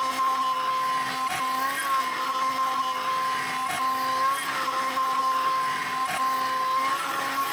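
CNC mill spindle running while an end mill cuts 4140 alloy steel: a steady whine that sags briefly in pitch a few times as the cut loads it, with sharp ticks about every second and a bit.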